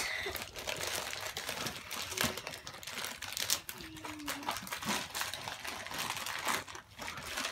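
Paper crinkling and rustling, with scattered crisp clicks, as hands dig a big handful of paper confetti filling out of a cardboard llama-shaped toy box.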